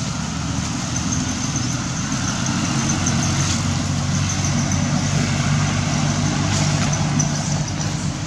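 A steady low engine hum, like a motor idling, holding level throughout.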